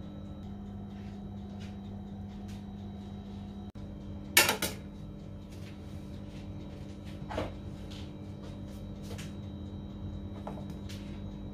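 A metal bowl clattering down on a table about four seconds in, then a lighter knock a few seconds later and a few faint ticks, over a steady low hum.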